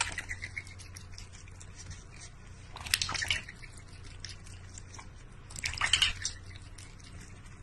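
Cat pawing at the water in a stainless steel bowl: small splashes and drips, with louder splashes about three seconds in and again about six seconds in.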